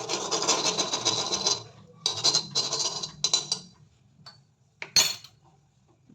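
Metal kitchen utensils clattering and scraping against a kadai in two bursts of about a second and a half each, then a single sharp clink.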